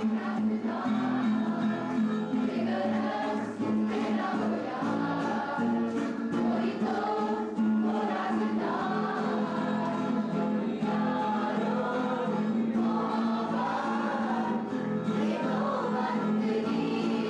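A group of young men and women singing a song together, accompanied by an acoustic guitar.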